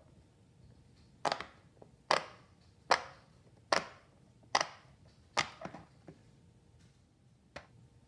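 Silicone push-pop fidget toy having its bubbles pressed through: six sharp pops at an even pace, a little under a second apart, followed by a few fainter clicks.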